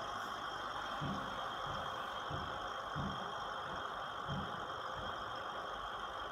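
Small electric air pump running with a steady hum, driving air through air stones that bubble in two beakers of water, with a few soft low thumps.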